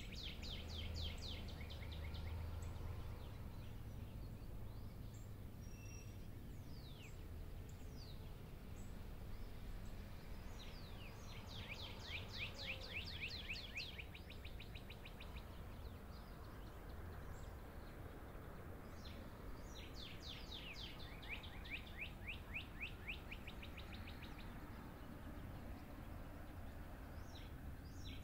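A songbird singing a fast trill of high, downward-sweeping notes, each phrase a couple of seconds long and repeated every several seconds, with a few scattered single chirps between. A low steady rumble runs underneath.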